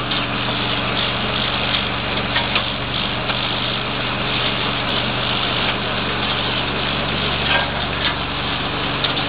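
Small-scale mining processing plant running steadily: motor hum under a dense rushing, rattling wash from the screens and water, with a few small knocks.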